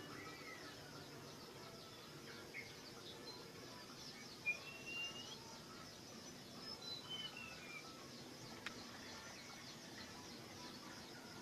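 Songbird whistling a few separate clear notes: a falling note at the start, a rising whistle about halfway, then a falling phrase, over a steady high pulsing chirr and a soft click near the end.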